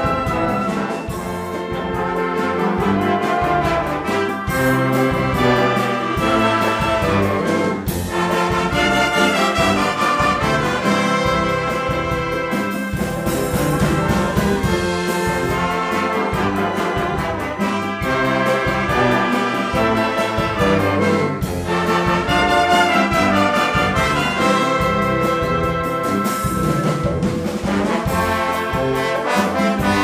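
Symphonic wind band playing a medley of songs from Pará: clarinets, trumpets and trombones together in full, continuous ensemble.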